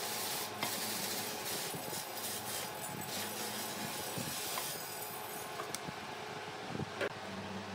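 Steady workshop machinery noise with a hum and hiss, with a few light knocks of the wooden crossbars being set onto the pedestal base; the loudest knock comes about seven seconds in.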